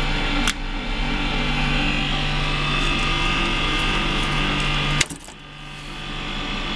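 GBC Magnapunch electric binding punch running with a steady motor hum, broken by two sharp clacks, about half a second in and about five seconds in.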